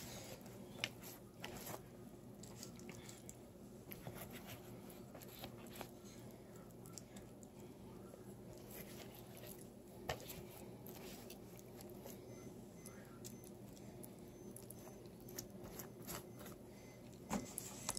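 Silicone pastry brush dabbing melted butter onto hot dinner rolls in a foil pan: faint soft squishing with scattered light clicks and taps, over a low steady hum.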